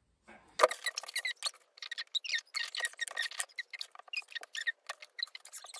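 Wooden spring clothes pegs being opened and clipped onto the edges of layered fabric: a busy run of sharp clicks and small squeaks, the sharpest click about half a second in.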